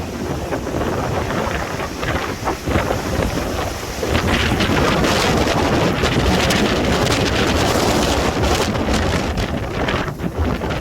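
Strong windstorm gusts rushing and buffeting the microphone with a deep rumble. A harder gust builds about four seconds in and eases near the end.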